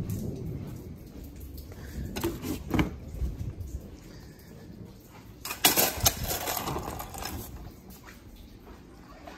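Mechanic's creeper being handled on a concrete garage floor: a few knocks about two seconds in, then a louder metal clatter about five and a half seconds in, with scuffing and rattling after it.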